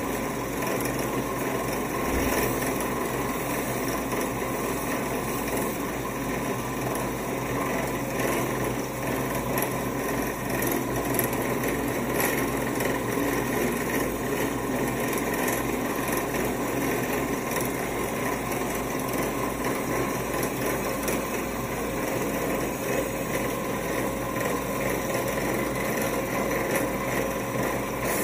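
Belt grinder running steadily, its abrasive belt grinding a pattern-welded (1084 and 15N20 Damascus) steel knife blade held against it.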